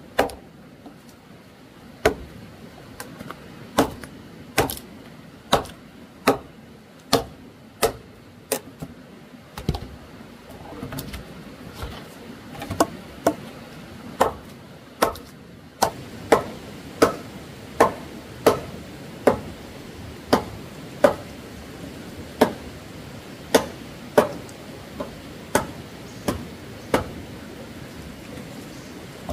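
Repeated chopping strikes, a blade hitting at a steady pace of roughly one blow every three-quarters of a second. Around ten to twelve seconds in there is a short stretch of softer, irregular knocks before the steady blows resume.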